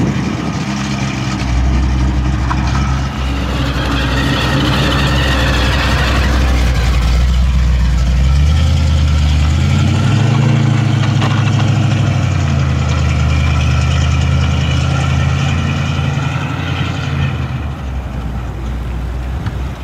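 Supercharged V8 of a 1969 Dodge Coronet running at low speed as the car pulls away, the exhaust note stepping up and down with light throttle. It grows fainter over the last couple of seconds.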